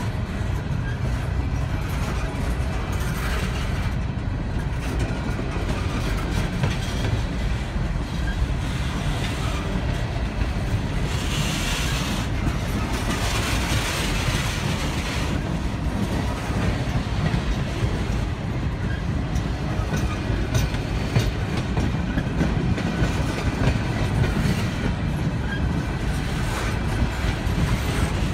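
Empty Norfolk Southern coal cars rolling past, steel wheels clicking over the rail joints over a steady low rumble. About halfway through, a stretch of harsher, hissier noise.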